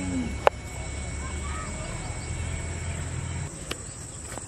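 Kitchen knife cutting through boiled potatoes onto a wooden chopping board: one sharp knock of the blade on the board about half a second in, and two fainter knocks near the end. Under it runs a steady high-pitched insect trill.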